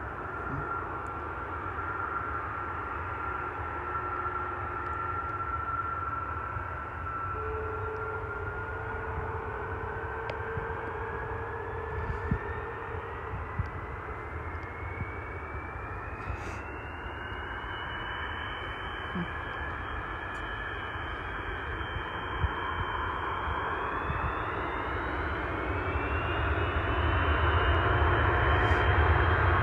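Boeing KC-135 tanker's four CFM F108 turbofan engines running with a steady rumble and whine. The whine rises in pitch about a third of the way in and again near the end as the engines spool up for takeoff, and the sound grows louder in the last few seconds.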